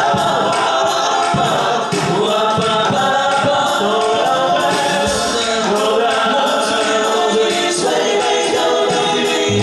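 Male vocal group of three singing a song together, several voices in harmony.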